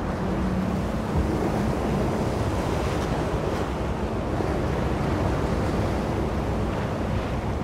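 Steady rush of wind and sea water heard from a moving ship, with wind buffeting the microphone and a faint low steady hum underneath.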